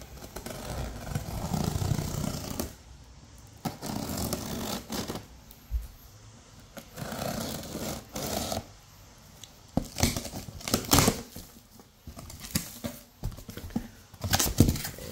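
Scissor blade drawn along the taped seams of a cardboard box, slicing the packing tape in a series of scraping strokes with pauses between them. Cardboard flaps rustle and crackle as they are pulled open near the end.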